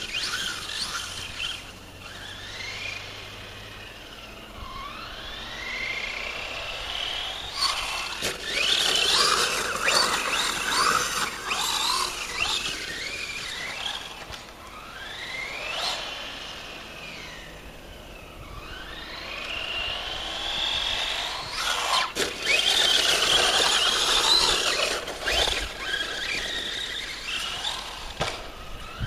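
Whine of a Traxxas Stampede 4x4 RC truck's Turnigy 3665 brushless motor on a 3S LiPo. It rises and falls in pitch over and over as the truck speeds up and slows, with a couple of sharp knocks.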